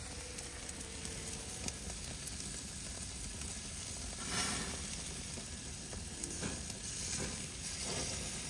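Ribeye steaks sizzling on a hot grill, a steady sizzle that swells briefly about four seconds in, with a few faint pops.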